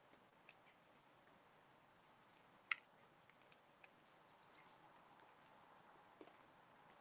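Near silence with faint hiss and a few soft clicks, the sharpest about three seconds in, from hooded crows' beaks pecking food in a metal feeding pan.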